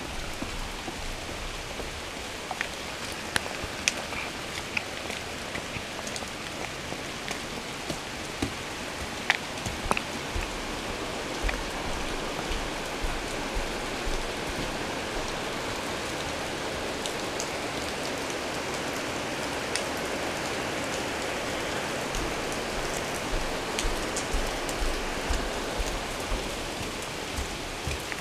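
Steady rain falling, with scattered sharper taps of drops striking nearby surfaces; the rain grows a little heavier toward the middle.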